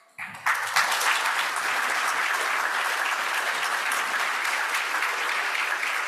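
A large audience applauding, steady clapping that starts about half a second in.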